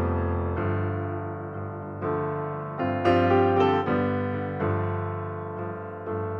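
Slow solo piano music: chords and notes struck about once a second or two, each left to ring and fade before the next.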